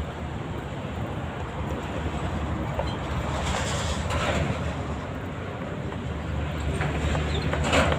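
Steady low rumble of passing traffic, with two louder rushing swells, one about three and a half seconds in and a shorter one near the end.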